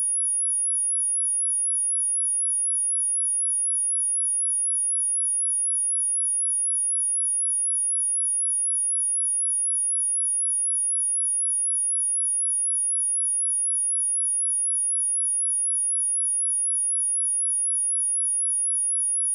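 Steady pure sine tone at 10348 Hz, a single very high-pitched whistle held at one pitch and level, used as a speaker test and speaker-cleaning tone.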